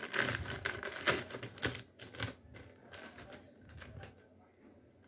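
Thin clear plastic polybag crinkling as hands handle and open it: a quick run of crackles for the first two seconds or so, then sparser, quieter rustles.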